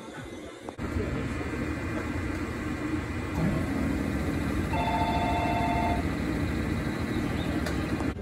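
A Japanese station departure melody starts about five seconds in and is cut off after little more than a second. Under it runs the steady low hum of a train standing at the platform.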